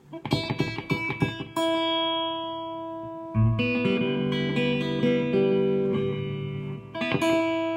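Electric guitar played through a Marshall amplifier: a quick run of picked notes, then chords left ringing, with a new one struck about three seconds in and another near the end.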